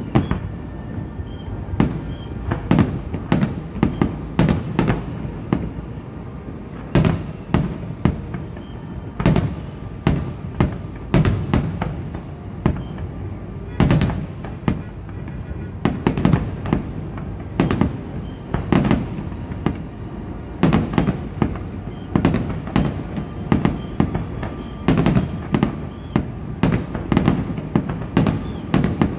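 Fireworks display: aerial shells bursting in a continuous barrage, sharp bangs coming about one to three a second, often in quick clusters, each trailing off in a rumbling echo.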